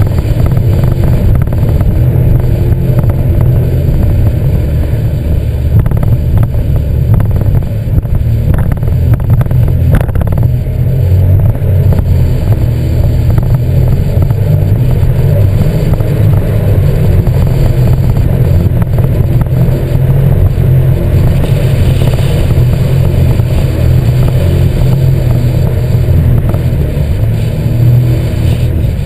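Sea-Doo GTX 260 iS Limited personal watercraft underway, its supercharged three-cylinder Rotax engine and jet drive giving a loud, steady low rumble. It is picked up by a camera suction-cupped to the craft itself.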